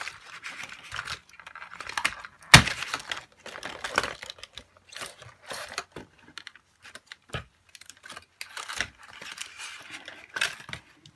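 Plastic and cardboard doll packaging being handled and pulled apart: irregular crinkling, rustling and clicks, with a sharp knock about two and a half seconds in, as a doll is freed from ties holding her in the box.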